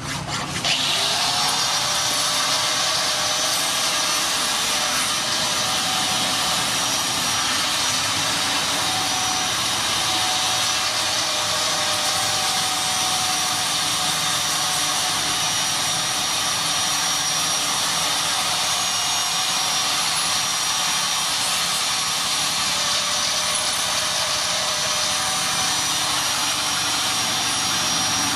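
Electric angle grinder spinning up about half a second in, then running steadily at full speed with a constant high whine.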